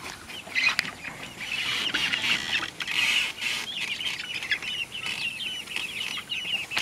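A flock of young chickens peeping, with many short high calls overlapping, growing busier about two seconds in.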